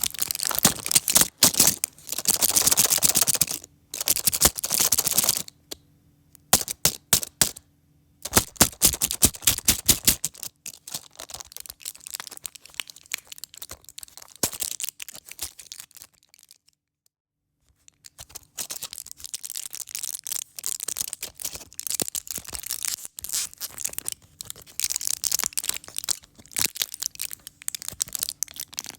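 A pack of pill tablets being handled, giving bursts of dense crinkling and crackling with clicks, with a pause of about two seconds past the middle.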